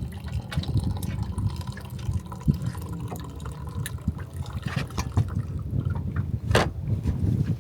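Water lapping and splashing against the hull of a small boat, in small irregular slaps, with one louder splash about six and a half seconds in.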